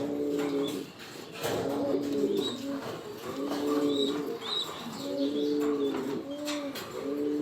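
Pigeons cooing, about five low, repeated coos in a steady rhythm, with faint clicks between them.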